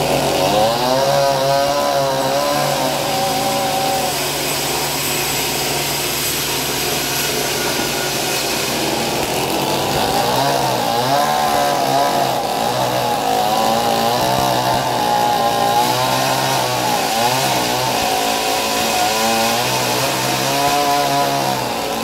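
Vertical band sawmill cutting timber lengthwise: a wavering whine from the blade in the cut over a steady low hum. The whine eases for a few seconds in the middle and returns for the rest.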